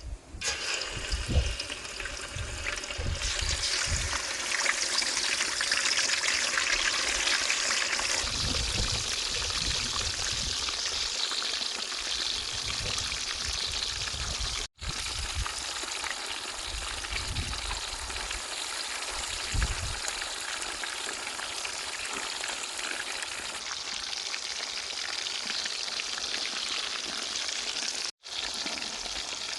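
Fish deep frying in hot soybean oil: a steady, loud sizzle that starts abruptly with a few sharp pops and spatters, cutting out briefly twice.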